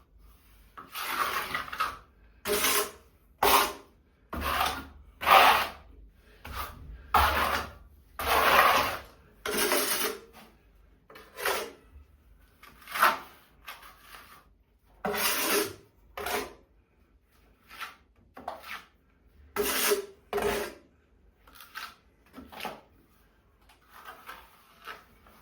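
Hand work rasping on wood in a run of short scraping strokes, about one a second, with a few pauses and fainter strokes near the end.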